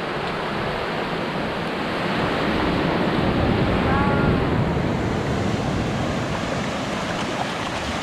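Ocean surf breaking and washing up a sandy beach in a steady rush that swells a few seconds in, with wind buffeting the microphone.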